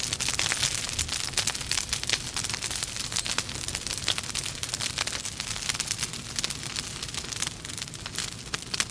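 Logs burning in a fireplace, with dense, irregular crackling and popping over a low rumble of flame.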